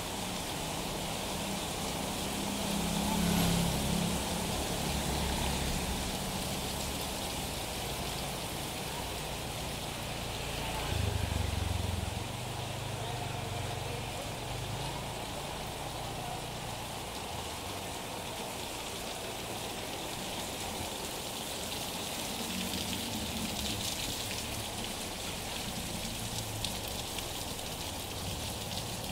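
Steady rain falling on a wet paved street, an even hiss, with low rumbles about three seconds in and again around eleven seconds.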